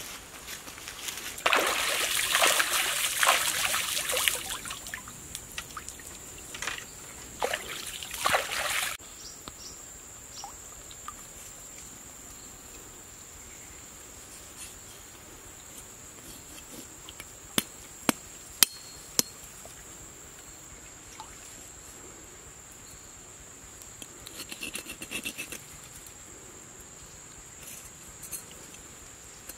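Feathers being pulled from a dead duck by hand over dry leaf litter: a dense crackling rustle for about seven seconds that then stops. After it a steady high insect trill, with a few sharp clicks about two-thirds of the way through.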